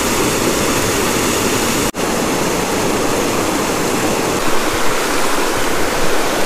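A shallow mountain river rushing over stones: a steady, loud rush of water close by, broken by a momentary dropout about two seconds in.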